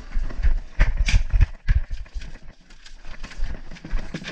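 Irregular scuffling, knocks and scrapes as a Nile monitor lizard scrambles across paving and into a plastic dog kennel, mixed with a person's footsteps; quieter for a moment about halfway through.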